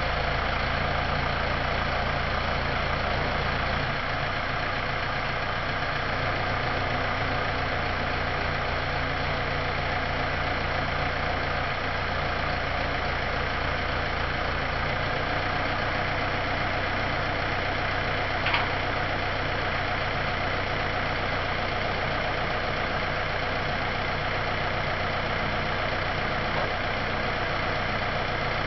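Farm tractor's diesel engine idling steadily while its hydraulics slide the low-loader trailer's twin axle rearward, bringing the tilted bed level. A single short click about 18 seconds in.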